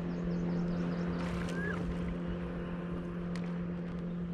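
Boat motor running with a steady, even hum. A short chirp comes about one and a half seconds in.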